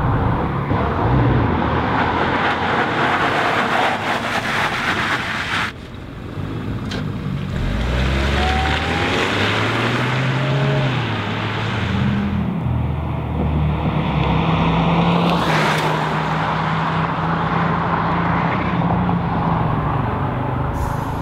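A steady rushing noise that cuts off abruptly about a quarter of the way in. Then the 2017 Chevrolet Cruze Hatchback's 1.4-litre turbocharged four-cylinder accelerates hard from a standstill, its pitch climbing and dropping back at two quick upshifts before running on at steady high revs.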